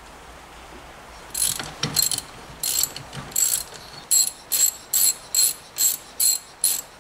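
Hand ratchet wrench being worked back and forth, its pawl clicking in a run of short bursts that settles into a steady pace of about two to three strokes a second.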